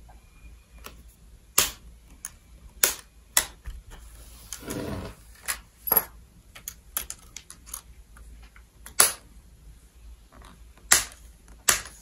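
Several sharp plastic clicks and snaps, spaced irregularly, as the thin plastic front bezel of an ASUS MB16AMT portable monitor is pried off by hand and its clips let go. A brief scraping rub comes about five seconds in.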